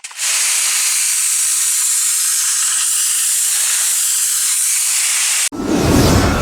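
High-pressure washer jet spraying with a steady, loud hiss that cuts off suddenly about five and a half seconds in.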